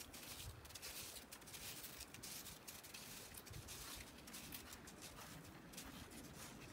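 Faint crunch of footsteps in snow, an irregular run of short steps.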